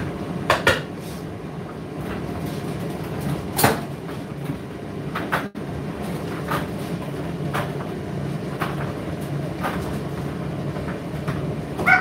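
Indesit IDC8T3 condenser tumble dryer running mid-cycle: a steady low hum from the turning drum, with irregular short knocks and clicks as the load tumbles.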